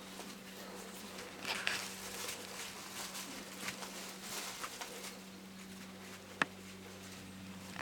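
Persian chinchilla kitten moving about: scattered light taps and scratches, with one sharp click about six seconds in, over a steady low electrical hum.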